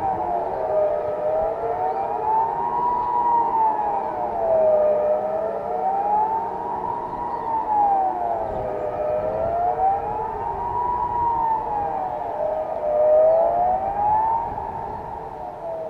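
Kockum Sonics civil-defence sirens sounding a wailing tone that rises and falls about every four seconds, two slightly offset sweeps overlapping. This is the Swiss general-alarm signal being tested.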